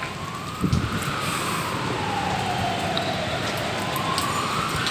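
Emergency-vehicle siren in a slow wail: its pitch rises, falls and rises again.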